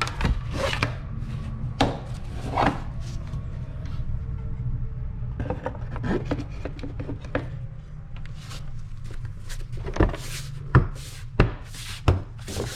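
Plastic engine cover rubbing and clicking as it is worked over the locating pins on the valve cover. Near the end come several sharp knocks as it is pressed down into its grommets.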